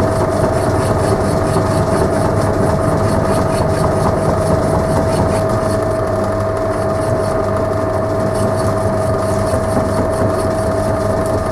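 Belt-driven boring bar turning at the lowest step-pulley speed and cutting out the bore of a home-built lathe headstock, fed slowly by a hand-cranked lead screw. It runs steadily with a constant whine and a fast, even ticking.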